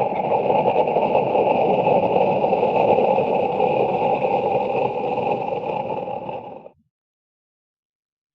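A long, rough monster growl sound effect, held steady for several seconds and then cut off abruptly almost seven seconds in, followed by silence.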